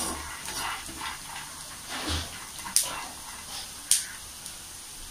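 A metal spoon stirring peanuts and green chillies roasting in a pan, over a light steady hiss. The spoon clicks sharply against the pan, loudest about three and four seconds in.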